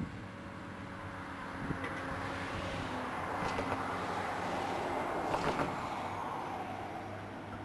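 Caterpillar 365C L excavator's diesel engine running under load, a steady low hum that swells into a louder rush through the middle and eases off near the end.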